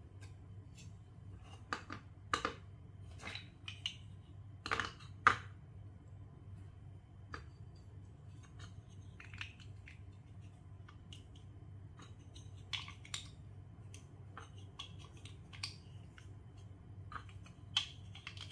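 Plastic Lego Duplo bricks clicking and knocking as they are handled and pressed together into a stack, in scattered clicks with the loudest pair about five seconds in.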